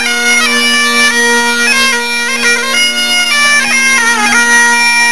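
Bagpipe music: a melody stepping from note to note with quick ornamental flicks over a steady, unbroken drone.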